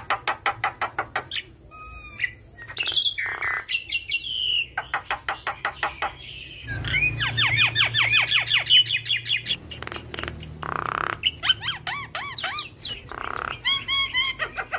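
Javan myna singing a long, varied song: fast runs of sharp clicking notes, chatter, and repeated whistled notes that slur downward in pitch.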